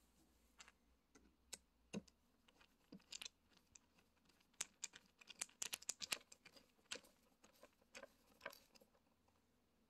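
Hand screwdriver driving a screw through a steel drawer-slide rail into a wooden panel: faint, irregular clicks and ticks of the tool and screw, with a quick run of them about halfway through.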